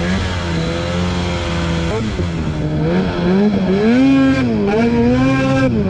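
Ski-Doo snowmobile engine running under throttle through deep snow, its pitch rising and falling as the rider works the throttle, climbing highest about four seconds in and dropping off just before the end.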